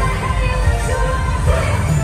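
Live pop-musical stage number: voices holding sung notes over an amplified backing track with a heavy, steady bass beat.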